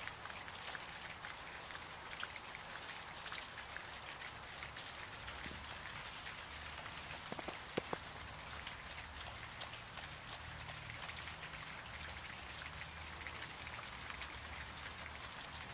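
Faint outdoor ambience over snow: a steady hiss with many small, irregular ticks and pattering sounds, and a couple of louder taps about eight seconds in.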